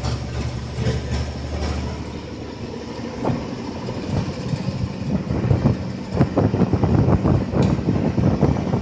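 APSRTC bus heard from inside while it drives: a steady low engine drone, then from about three seconds in, loud, irregular knocking and rattling of the bus body over the drone.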